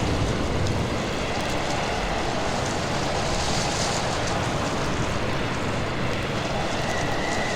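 Sound-effects recording of a storm at sea: a steady, dense roar of wind and heavy water with small swells, and no separate impacts.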